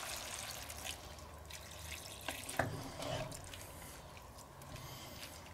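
Water poured from a jug into a cast-iron Dutch oven of sausage, bacon and onions, trickling and splashing onto the food. Two short knocks come a little past two seconds in as the pot is stirred.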